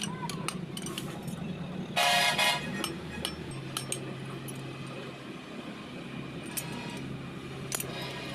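A short horn-like toot of about half a second, two seconds in, over scattered sharp metallic taps, with a steady low machine hum setting in about halfway through.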